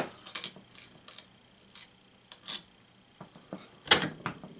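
Scattered small clicks and clinks of hand tools and small parts on a quadcopter as its plastic propeller, nut and washer are taken off the motor shaft by hand, with the loudest clatter about four seconds in.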